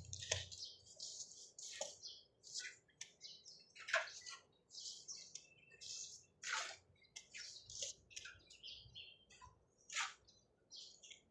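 Small birds chirping: a steady run of short, high chirps, with three louder, sharper calls at about four, six and a half, and ten seconds in.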